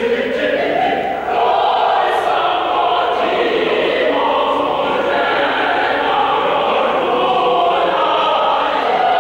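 A secondary-school choir singing together in full chorus, the voices held and moving through sustained chords, with a brief dip about a second in before the sound swells again.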